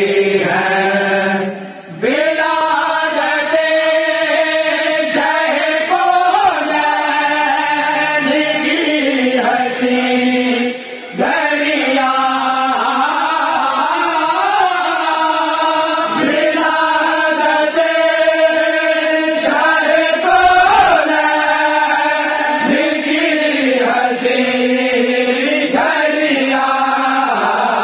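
A group of men singing an Urdu naat in a chant-like style with long held notes and no instruments. The singing pauses briefly twice, once about two seconds in and once about eleven seconds in.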